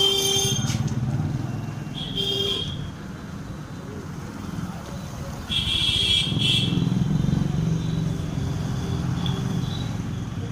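Street traffic: a steady low engine rumble from passing vehicles, with two short horn honks, one about two seconds in and a longer one around the middle.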